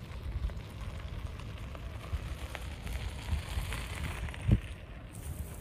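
Wind gusting over the microphone as a low, uneven rumble, with scattered crackles and pops from houses burning in the wildfire. One sharper pop stands out about three-quarters of the way through.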